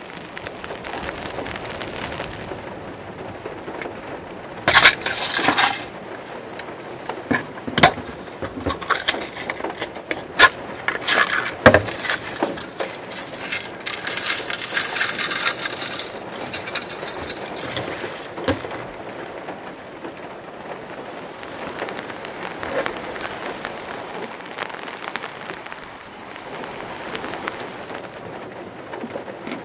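Steady rain falling on the roof of a small VW van, heard from inside the cabin. Between about five and sixteen seconds in, a plastic bag crinkles and rustles loudly in bursts as granola is poured from it into a cup.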